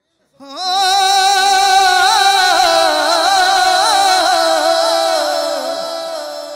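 A male singer's voice over a microphone holding one long note of a Punjabi sufi kalam, decorated with quick wavering turns, the pitch sinking slightly near the end.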